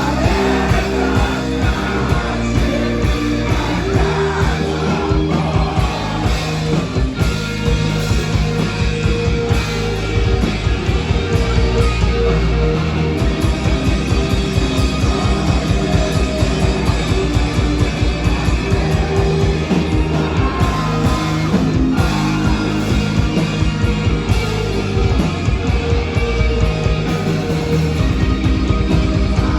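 Rock band playing a song live, with singing over the band.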